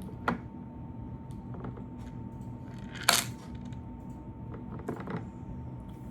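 A few sharp clicks and knocks of small plastic slime-kit containers being handled, the loudest about three seconds in, over a faint steady hum.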